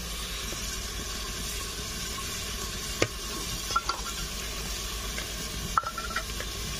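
Metal serving spoon scooping hot, steaming rice onto a steel platter, scraping and clinking against the metal a few times, about three seconds in and again near the end, over a steady hiss.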